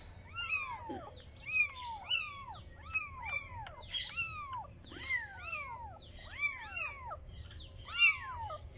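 Young kitten mewing over and over, about two short high-pitched calls a second, each rising then falling in pitch; the loudest comes near the end.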